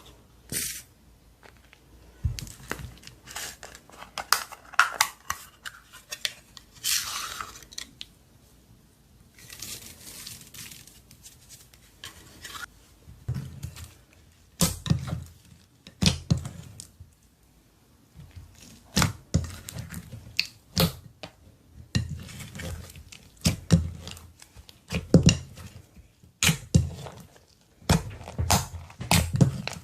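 Slime being squeezed, stretched and mixed by hand: irregular sticky pops and crackles with soft low thuds.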